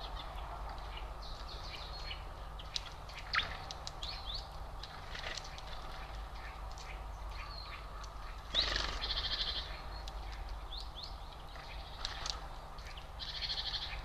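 Small songbirds chirping and calling, many short calls throughout, with a rapid buzzy trill twice, about nine and thirteen seconds in. A louder sudden sound comes just before the first trill, and a steady low hum runs underneath.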